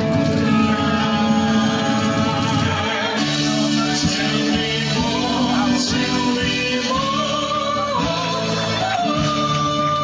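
Live band with male and female singers performing an upbeat song through a PA, with a long held sung note near the end.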